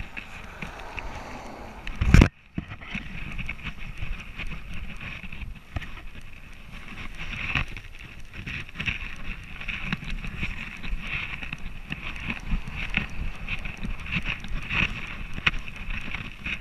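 Rubbing and knocking of an action camera worn on a trotting border collie's harness, a steady jostling rustle with many small knocks. A single much louder knock about two seconds in.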